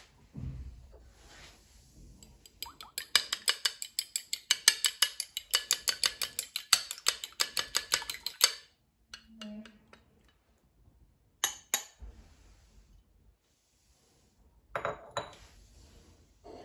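Stirring in a bowl: a kitchen utensil clinks against the bowl several times a second for about six seconds, then a few single clinks follow.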